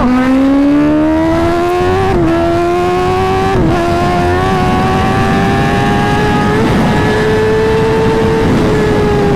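Kawasaki ZX-10R's inline-four engine at full throttle through a loud exhaust. Its pitch drops sharply at an upshift right at the start, then climbs slowly and steadily through a long pull in one gear, levelling off and easing slightly near the end, with wind rushing underneath.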